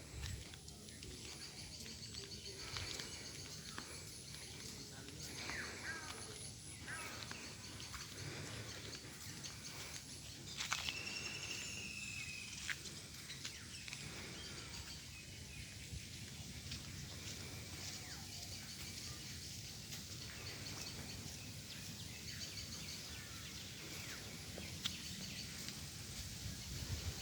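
Faint background ambience with occasional bird calls, including a short arched call about eleven seconds in.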